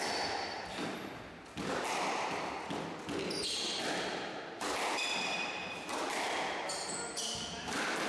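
Squash ball being hit, smacking off the court walls and the wooden floor every second or two, each hit echoing around the court, with sports shoes squeaking on the floor between hits.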